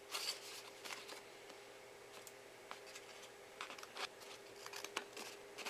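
Scissors cutting a sheet of paper, a scatter of faint, irregular snips.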